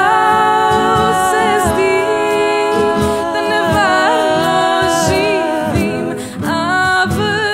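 Solo singing with backing music. The singer holds a long note, then sings an ornamented phrase, breaks off briefly about six seconds in, and starts the next phrase.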